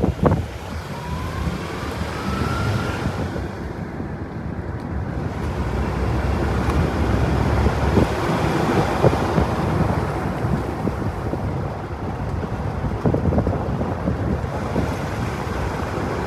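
Strong gusting wind buffeting the microphone: a heavy, steady rumbling rush that swells a little past the middle.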